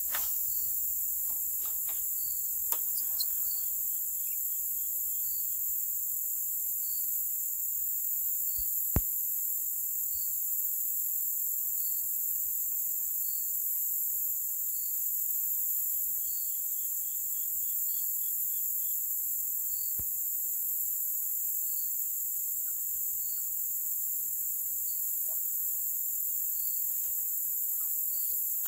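Steady, high-pitched chorus of crickets and other insects, with one chirp repeating evenly about every second and a half. A single sharp click comes about nine seconds in.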